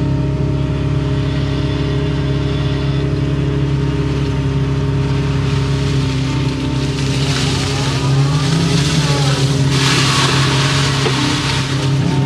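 Excavator's diesel engine running steadily under digging load, heard from inside the cab. About seven seconds in, a rushing hiss comes in and grows loudest near the end while the engine note rises slightly.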